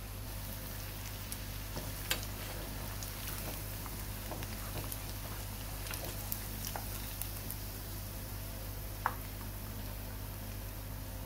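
Batter-coated cauliflower florets deep-frying in hot oil, a steady sizzle with small scattered crackles. A couple of sharp taps, about two seconds in and again near the end, come from the wire strainer and spoon knocking against the pan as fried florets are lifted out to drain.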